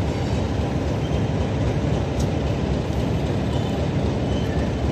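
Mainline diesel locomotive running steadily as it pulls away along the platform, a continuous low engine sound.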